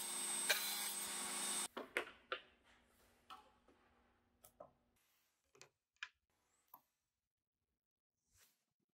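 Table saw running as a thin strip is fed past the blade, stopping abruptly about one and a half seconds in; then a scattering of light clicks and taps as the strip and a small measuring gauge are handled.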